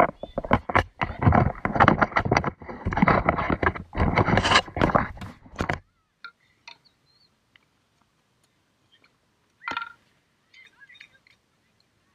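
Loud rustling and buffeting right on the camera's microphone for about the first six seconds, cutting off suddenly. About two-thirds of the way through, a single sharp pock of a tennis ball struck by a racket, followed by a few faint high chirps.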